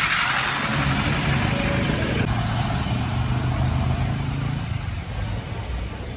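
ATV engine running steadily under a loud rushing noise, which eases slightly about two seconds in.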